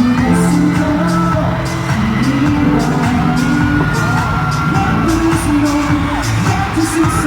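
Live K-pop music with singing played loud over an arena sound system, with audience whoops.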